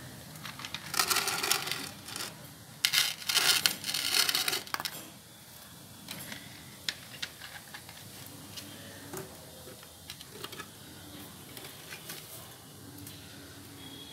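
Dry cow-dung cakes scraping and clinking against each other and a clay stove as they are stacked by hand. There are two loud stretches of rustling clatter in the first five seconds, then light scattered taps.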